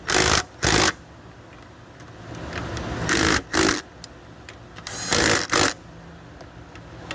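Cordless power wrench spinning the throttle body's 8 mm mounting bolts down into the intake manifold in short spurts, about six in three pairs, snugging them gradually in a crisscross order rather than running any one tight.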